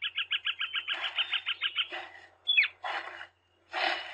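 Bat squeaks as a recorded sound effect: a fast run of high chirps, about eight a second, for the first two seconds. Then a single high squeak that falls in pitch and a few short rushing sounds like flapping wings.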